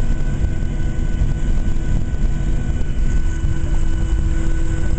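Cabin noise inside a Boeing 737-700 on the ground after landing: a steady low rumble with a few faint, steady tones running under it.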